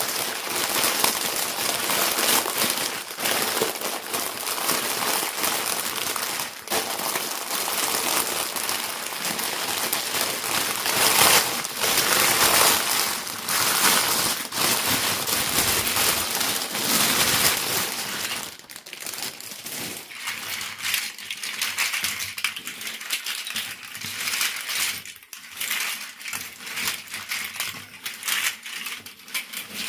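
Plastic packaging and small plastic parts being handled: a dense crinkling crackle full of small clicks and taps, thinning out to sparser separate clicks about two-thirds of the way through.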